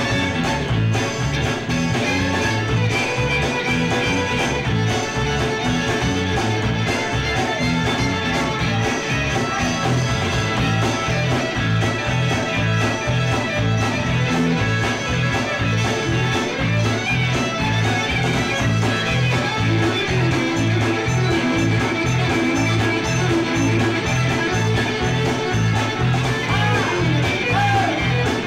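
Live band playing an instrumental break with electric guitar, bass guitar and fiddle over a steady driving bass rhythm, in a country-rock style.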